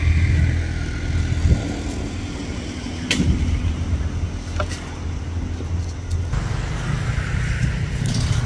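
A steady low motor rumble, with a sharp click about three seconds in and another about a second and a half later.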